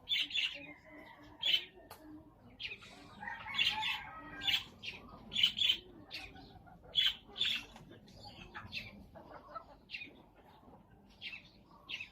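Birds chirping: short, high calls repeated irregularly, one or two a second.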